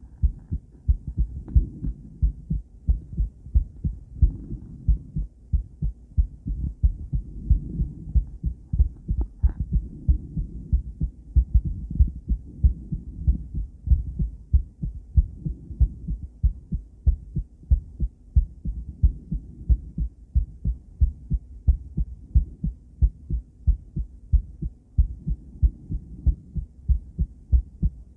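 A woman's heartbeat heard through ultrasound recording: a steady rhythm of low paired thumps (lub-dub), a little over one beat a second, over a low hum.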